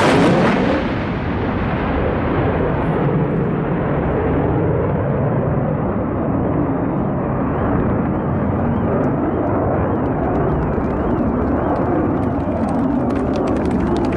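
Jet noise of an RAF Panavia Tornado's twin RB199 engines passing overhead: loudest and hissiest at the start, the hiss fading over the first few seconds as the jet moves away, leaving a steady low rumble.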